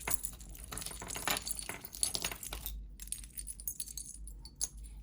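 Small metal jewelry pieces and charms clinking and jingling as they are handled, busy for the first half and then sparser clicks.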